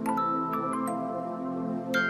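Soft background music: gentle struck bell-like notes over a sustained pad.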